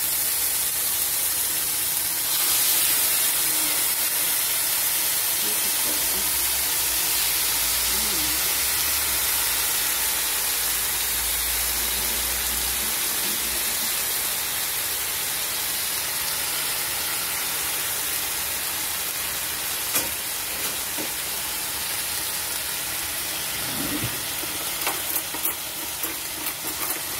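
Yogurt-marinated chicken breasts sizzling on a hot grill pan: a steady hiss, with sharp pops and crackles coming in over the last few seconds.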